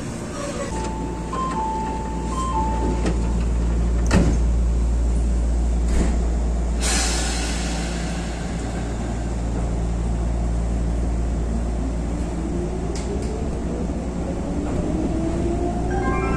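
Nagano Electric Railway 8500 series electric train heard from inside: a steady low hum, a few short electronic tones early on, a sharp knock about four seconds in and a burst of hiss near seven seconds. From about twelve seconds the traction motors' whine rises steadily in pitch as the train accelerates.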